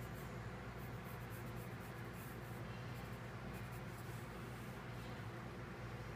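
Wooden graphite pencil scratching across paper in several short sketching strokes, over a steady low hum.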